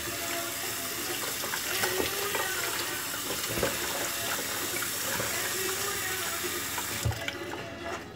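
Kitchen tap running into a sink, the water splashing over a whole mackerel being rinsed by hand in a plastic colander, with a few light knocks of handling. The running water cuts off about seven seconds in.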